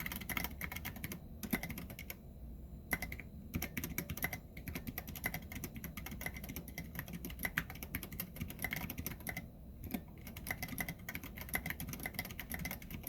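Fast, steady typing on a custom 60% mechanical keyboard with an aluminum case and plate. The keys use Cherry MX Brown tactile switches, with foam dampening and keycap dampener rings. There are short pauses in the typing now and then.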